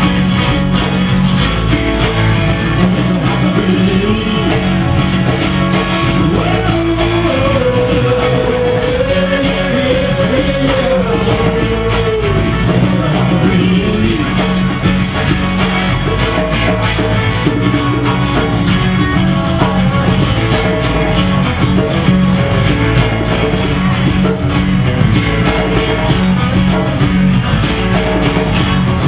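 A rock band playing live, with electric guitars, bass and drums and a vocal or lead melody line through the middle, recorded loud from the audience.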